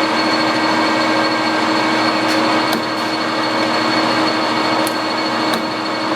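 Nardini Mascote geared-head lathe running under power, its spindle and headstock gear train giving a steady hum with a fixed whine, and a few light clicks.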